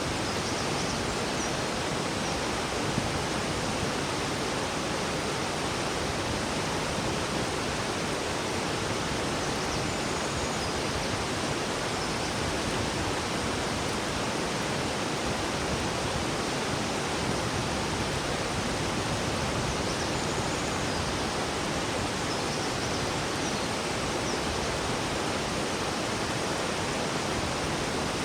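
River water flowing: a steady, even rush of water that does not change.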